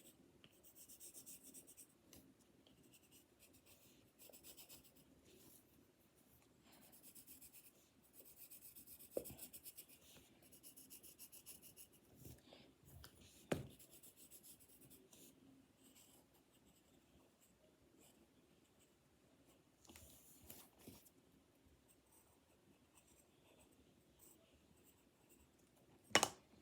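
Faint pen strokes scratching on paper, retracing the faded lines of a drawing, in short repeated bursts that thin out after the first half. A few soft knocks about 9 and 13 seconds in, and a sharper one near the end.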